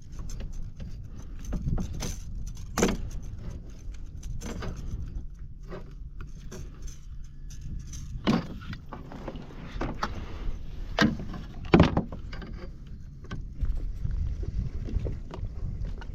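Irregular knocks, clicks and rattles of gear handled aboard a small fishing boat, over a low steady rumble.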